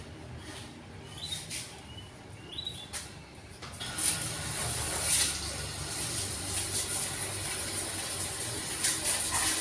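A small caged bird gives a few short chirps among light clicks, and then, about four seconds in, a steady hiss starts and runs on.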